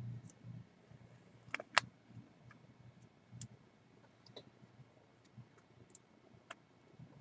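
A few faint, scattered clicks from a computer mouse and keyboard, the loudest about two seconds in, over a low hum.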